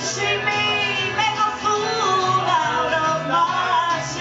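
Live band playing a country song: a woman singing over electric guitar and upright bass.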